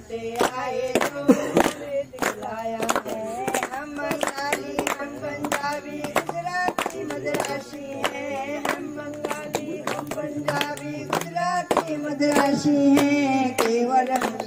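Women singing a patriotic song, with steady hand-clapping keeping time throughout.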